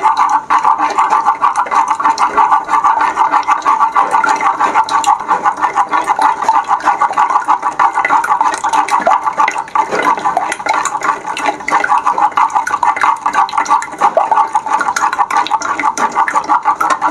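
Raw eggs being beaten fast with a wooden spatula in a clay pot: a steady, rapid rhythm of wet sloshing strokes, with the wood knocking against the clay.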